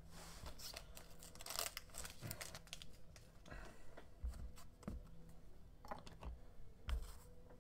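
Hands handling a trading card and plastic card holders: faint rustling and scraping, with a few light taps on the tabletop.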